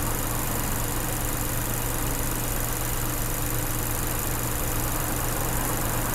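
Car engine idling steadily with the hood open: an even low drone under a mechanical hiss. The engine is running on a molybdenum-based additive oil, put on for its sound.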